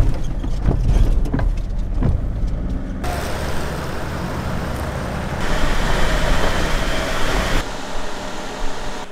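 Low rumble of engine and road noise from inside a moving vehicle, with a few knocks. After a cut about three seconds in comes the hiss of tyres and engine as an SUV drives past on asphalt, followed by more vehicle running sounds.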